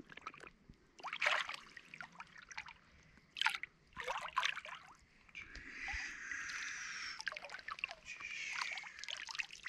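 Shallow river water splashing and sloshing around a large flathead catfish being released by hand: a few sharp, irregular splashes in the first half, then a steadier swishing.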